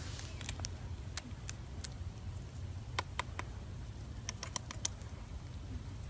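Faint, irregular small clicks and ticks, about fifteen scattered through a few seconds, over a low steady outdoor rumble.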